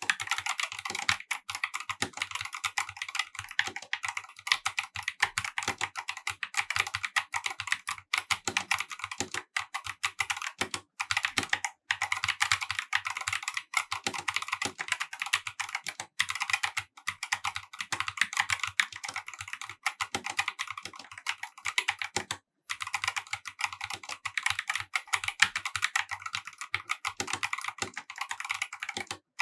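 Continuous fast typing on a Corsair K70 RGB TKL OPX tenkeyless gaming keyboard with linear optical (OPX) switches: a dense, rapid clatter of keystrokes with a few brief pauses.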